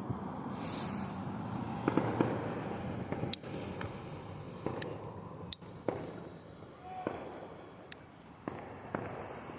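Consumer firework going off: a steady hiss broken by about a dozen irregular sharp pops and cracks.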